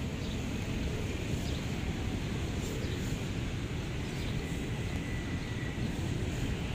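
Steady low outdoor rumble of street ambience, with a faint thin high tone for a couple of seconds in the middle.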